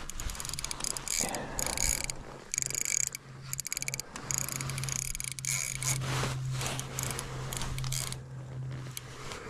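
Fishing reel ratcheting in bursts of rapid clicks as a hooked trout is fought through the ice, over a low steady hum.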